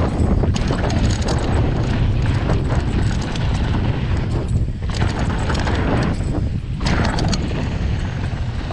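Mountain bike rolling fast down a loose dirt track, with wind buffeting the microphone into a dense low rumble. Tyres crunch over dirt and stones, and frequent clicks and rattles come from the bike; the rush eases briefly twice in the second half.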